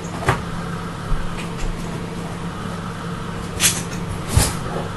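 A few short knocks and clicks of kitchen items being picked up and set down on a countertop, the sharpest near the start and two more near the end, over a steady low hum.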